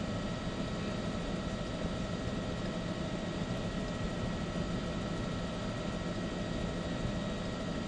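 News helicopter's engine and rotor noise, a steady rushing hum with faint constant whining tones running through it.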